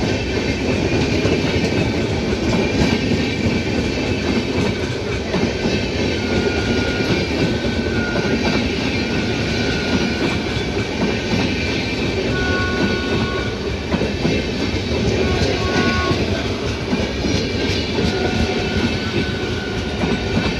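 Red-and-grey LHB passenger coaches of an express train rolling past close by, their wheels clattering steadily over the rail joints. A few short, high-pitched tones come and go through the middle.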